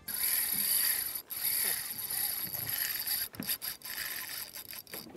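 Spinning reel being cranked while a micro-jig is worked, its gears whirring and clicking, with wind and sea noise behind; the winding dies away near the end.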